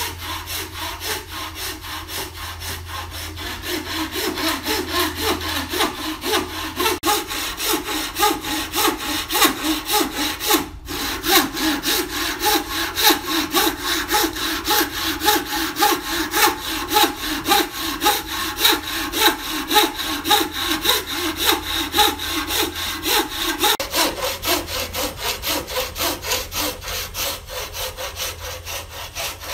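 Wooden frame saw with a thin tensioned blade cutting through a timber block by hand, in a steady rhythm of back-and-forth strokes. There is a brief gap about eleven seconds in.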